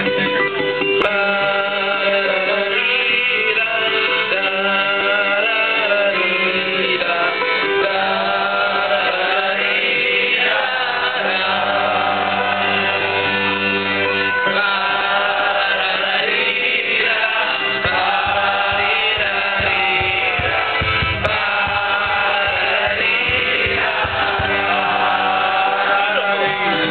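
An audience singing a melody together in long held notes, over live accordion and acoustic guitar.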